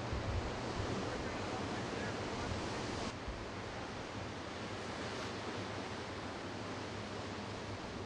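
Steady rush of ocean surf and wind on the microphone, with a low steady hum under it for the first three seconds.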